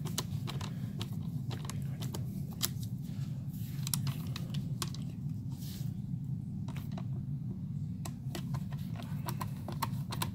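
Handling noise: scattered small clicks and a few brief rustles over a steady low hum.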